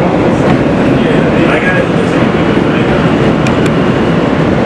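New York City subway train running at speed on an elevated line, heard from inside the car: a steady, loud rumble of wheels on rail as it runs through a station without stopping.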